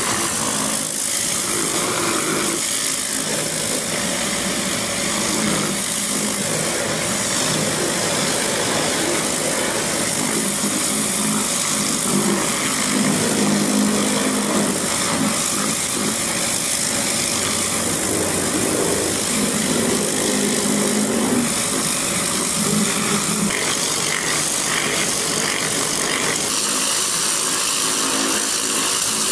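Pressure washer with a rotary turbo nozzle blasting mud off an excavator's steel crawler tracks: a steady loud hiss of the water jet, with an engine running underneath.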